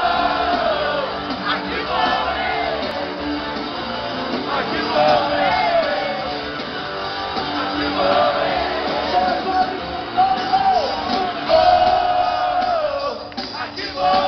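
Loud music with a crowd of voices singing and shouting along, holding long sung notes.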